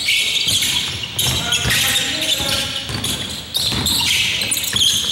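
A basketball bouncing on a gym court during play, with voices of players and spectators around it.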